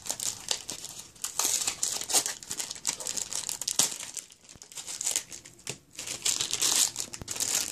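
Clear plastic retail packaging crinkling and crackling as hands pull it open, coming in irregular handling noises with short lulls around four and six seconds in.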